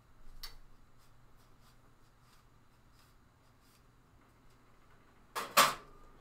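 Light clicks and small scrapes of kitchen handling, then two sharp metal clanks close together near the end, the second ringing briefly, typical of a utensil or pan knocking on a gas stove.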